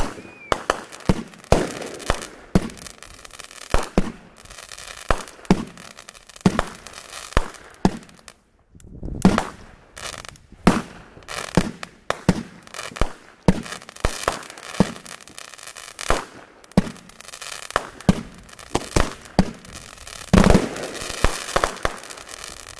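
A multi-shot consumer firework box going off: a long run of sharp bangs and crackles, several a second, with a brief lull about eight seconds in, stopping near the end.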